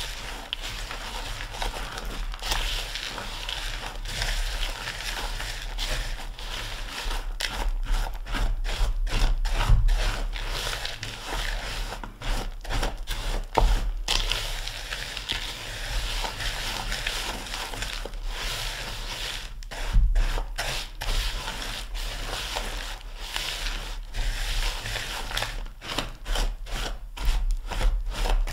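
A spatula stirring and scraping a crumbly mix of chopped pecans, graham cracker crumbs and brown sugar around a large bowl. It is a dry, gritty rustle in uneven strokes, as the dry ingredients are worked together and the brown sugar is broken up.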